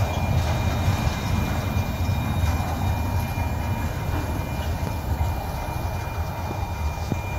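Freight train tank cars rolling past on the rails: a steady low rumble of wheels on track, with a thin steady high whine above it, easing off slightly near the end.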